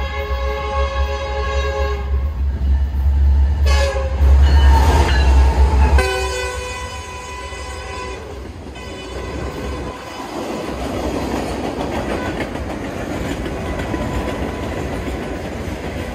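BNSF freight train passing: the locomotive's multi-note air horn sounds in three blasts, the first and last long, over a heavy low rumble. After about six seconds the rumble gives way to a steady rush and wheel clatter as the boxcars roll by.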